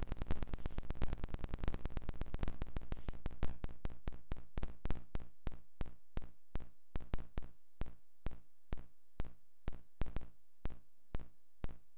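Computer-synthesized noise clicks from a Max/MSP patch driven by IanniX: a regular train of short pulses that slows from about ten a second to about three a second and slowly fades.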